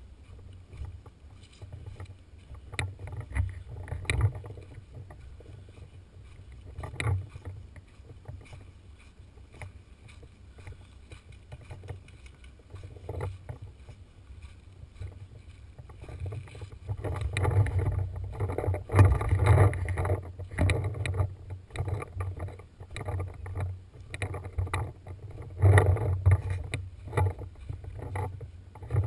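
Low rumbling handling noise and wind on a body-worn action camera's microphone as a paintball player moves through rocks and brush, with scattered knocks and rustles. It gets busier and louder for a few seconds a little past halfway and again near the end.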